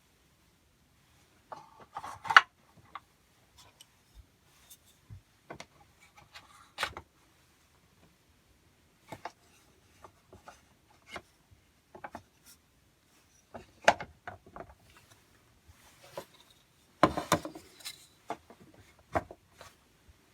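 Wooden parts of a pinewood toy train being fitted together by hand: irregular knocks, taps and rubbing of wood on wood as dowel-jointed pieces are pushed into place, with a busier run of knocks near the end.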